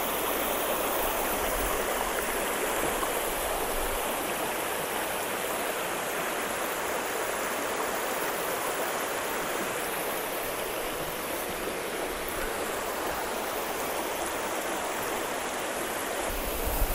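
River running high, a steady rush of flowing water.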